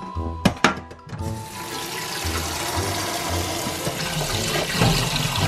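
Kitchen tap running full into a stainless steel bowl of just-blanched green onions, a steady rush of water that starts about a second in, cold water to stop them cooking. A couple of sharp knocks come just before it.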